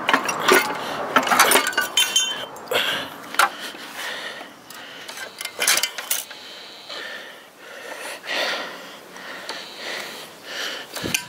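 Metal engine parts clinking and knocking against each other as the one-piece main bearing cap casting is worked loose and lifted off a Ford Duratec engine block. A flurry of sharp clinks comes first, then lighter scrapes and taps.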